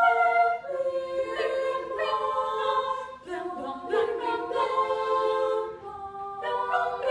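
Women's chorus singing a cappella, several voice parts holding notes together in harmony and moving to new chords every second or so.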